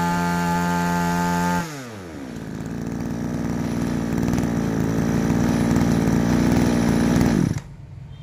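Komatsu Zenoah 261 two-stroke brush cutter engine running fast and steady, then slowing down to idle about a second and a half in. It idles for several seconds and then cuts out near the end.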